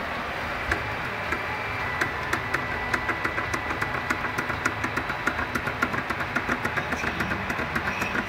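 Homemade robot arm's stepper motors running: a steady mechanical whine with a high tone, and rapid regular ticking that grows denser from about three seconds in.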